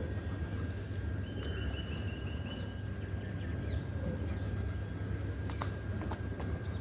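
Small birds chirping: a quick run of short, high repeated notes about a second in, then a couple of sharp down-slurred calls, over a steady low rumble.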